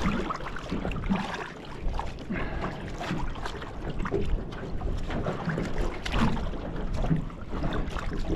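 Wind buffeting the microphone, with choppy water lapping and slapping irregularly against the hull of a small aluminium boat.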